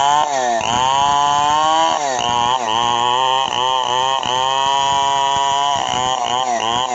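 Chainsaw cutting into tough waru wood, its engine speed sagging and picking up again over and over as the wood loads the chain.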